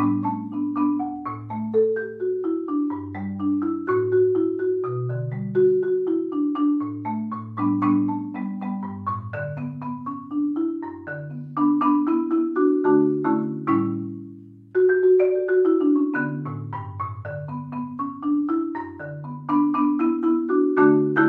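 Marimba melody, notes struck in a quick steady rhythm over a lower bass line. About two-thirds of the way through it fades out, then starts again abruptly.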